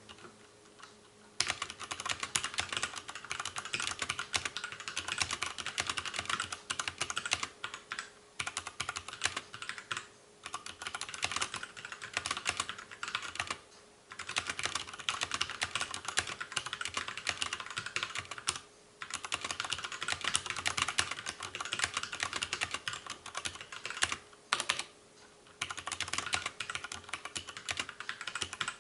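Fast, continuous typing on two mechanical keyboards used at once, one with MX Brown tactile switches and one with MX Black linear switches. A rapid patter of key clicks, with short pauses about a second in and several more times between words.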